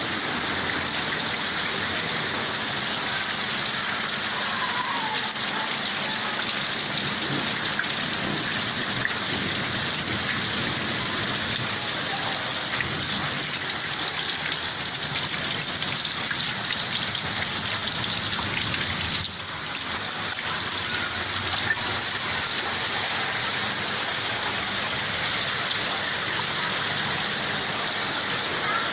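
Heavy rain falling steadily: a dense, even hiss of drops on surfaces. It briefly drops off about two-thirds of the way through.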